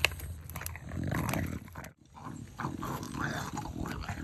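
Bulldog chewing and gnawing on an air-dried cow ear, a run of wet crunches and teeth clicks, with a brief break about halfway through.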